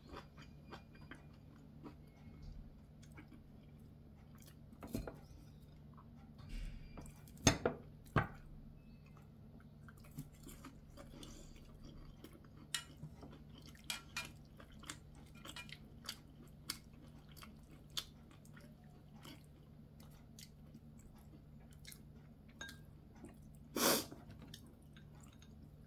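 Close-up eating sounds: quiet chewing and small clicks of metal chopsticks against a ceramic bowl, scattered through, with a couple of sharper clicks about seven to eight seconds in and a short louder noise near the end. A steady low hum runs underneath.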